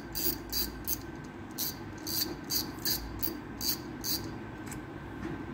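Light, even clicking from a Shimano Sustain C5000XG spinning reel being worked by hand as it is opened, about three clicks a second, stopping about four seconds in.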